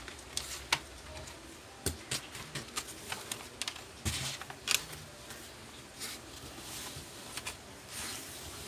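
Irregular clicks and knocks of hands and a screwdriver working on an opened laptop's plastic underside around the hard-drive bay and memory slots, with the chassis shifted on the bench.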